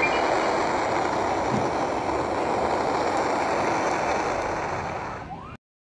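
A steady rushing noise with no tune, like wind or surf, that fades a little and then cuts off suddenly shortly before the end.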